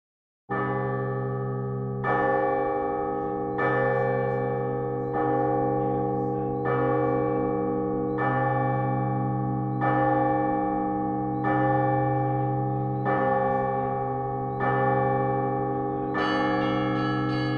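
Bronze Russian Orthodox church bells cast by the Anisimov foundry: a large bell struck at a steady pace about once every one and a half seconds, its deep hum carrying between strokes. Near the end smaller, higher bells join in.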